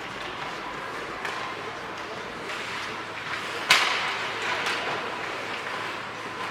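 Ice hockey rink sounds during play: a steady din of spectator chatter, broken by a few sharp knocks of sticks and puck, the loudest a crack about halfway through.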